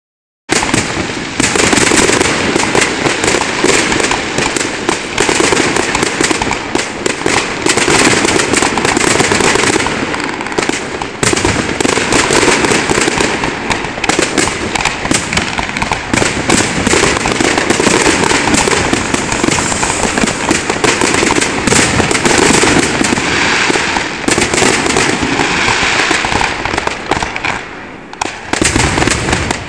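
Fireworks display: a dense, continuous barrage of overlapping bangs and crackling bursts, many a second, easing briefly near the end.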